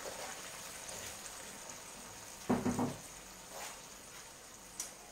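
Tuna in tomato sauce sizzling faintly in a frying pan, with a short knock about two and a half seconds in.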